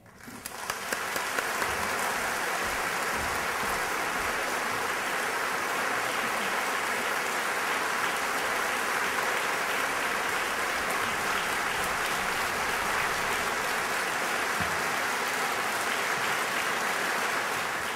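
An audience applauding, building up over the first second or so and then holding steady.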